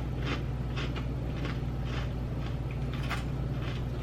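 Chewing dill pickle potato chips, with faint crunches about twice a second and one louder crunch about three seconds in, over a steady low hum.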